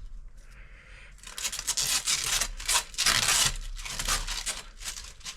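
Brown tape being peeled off a fork tube, a string of rough ripping, rasping bursts, loudest from about a second in to about three and a half seconds, then smaller pulls near the end.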